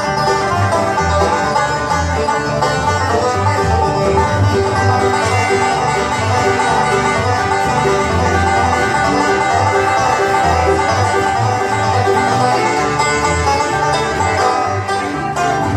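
Live acoustic bluegrass band playing an instrumental: banjo picking, acoustic guitar, mandolin and upright bass. A fiddle comes in partway through.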